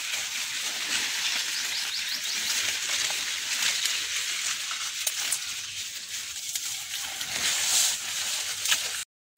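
Dry maize leaves rustling and brushing as someone pushes through the cornfield stalks, a steady hiss that cuts off suddenly near the end.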